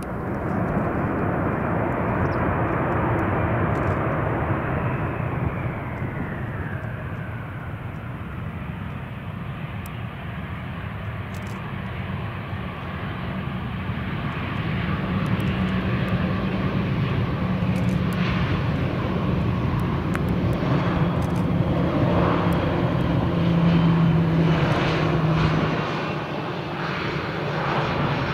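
Airbus A320-214's CFM56 jet engines running on the landing rollout, with a high whine that falls in pitch a few seconds in. A low steady drone builds as the airliner passes close by and is loudest a few seconds before the end.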